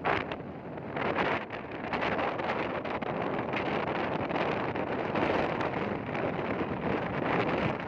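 Heavy wind buffeting the microphone: a steady rushing noise broken by short, sharp gusts.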